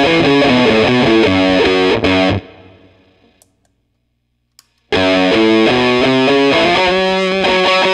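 Les Paul electric guitar played in single-note lines through a Tone Bender MkI-style fuzz pedal into a Marshall JCM800 combo amp, giving a thick fuzz tone. The playing stops about two and a half seconds in and dies away, with a couple of faint clicks as a pedal footswitch is worked. About five seconds in it resumes through the other MkI fuzz pedal.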